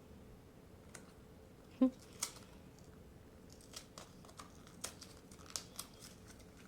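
Plastic toy packaging crinkling and tearing as it is opened by hand: scattered short crackles, with one louder brief sound just under two seconds in.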